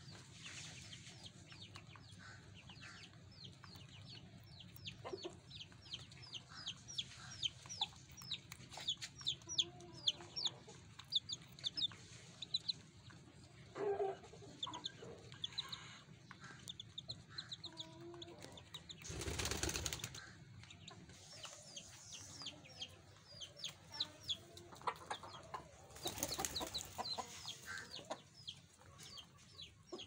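Domestic hens clucking now and then over a near-continuous chatter of rapid, high, falling chirps from small birds. Two brief noisy rushes come about twenty seconds in and again six seconds later.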